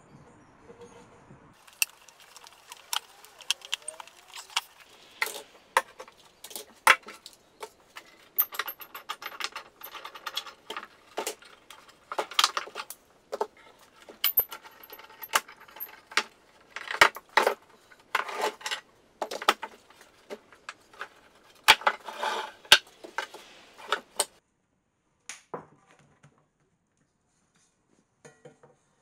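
Metal bar clamps being handled and tightened across a glued-up panel of wood strips: a long irregular run of sharp metallic clicks, clinks and knocks.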